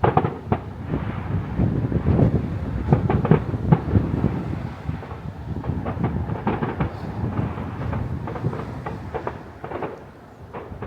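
Fireworks exploding in a rapid, continuous barrage of overlapping bangs and crackles over a low rumble. It starts with a sudden loud bang and eases off briefly near the end.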